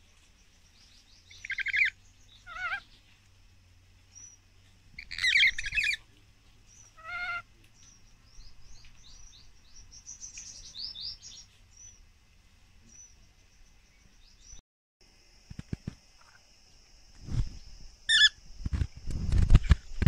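Rainbow lorikeets calling: a few short, harsh screeches in the first six seconds, then a run of quick high chirps. Near the end, low thumps and rumbling.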